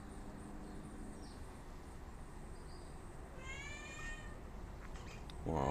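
A single drawn-out animal call, slightly falling in pitch, about three and a half seconds in, over a faint background hum.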